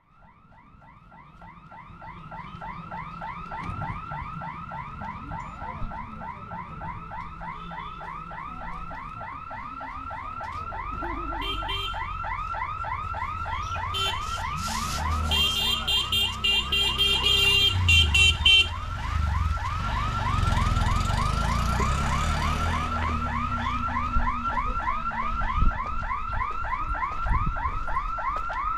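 Railway level-crossing warning hooter sounding as the gate barriers close: an electronic alarm tone repeating several times a second, fading in at the start. About halfway through, a shrill horn-like burst and the rumble of passing engines come over it.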